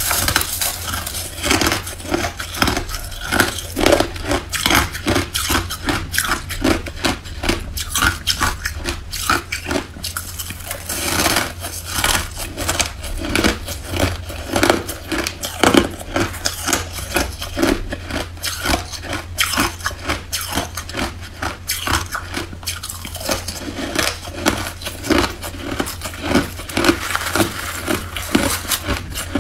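A person biting and chewing mouthfuls of crushed, frosty ice: a fast, continuous run of crunches with brief lulls between mouthfuls.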